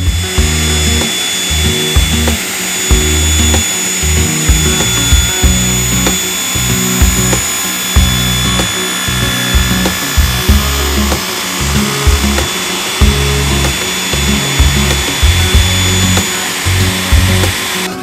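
A stationary woodworking machine running with a steady high whine and hiss, cutting a rocking chair's back leg held in a clamped jig. Background music plays underneath.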